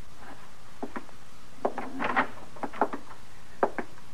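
Slow, uneven knocks on wood, mostly in close pairs about a fifth of a second apart, coming roughly once a second: a radio-drama sound effect.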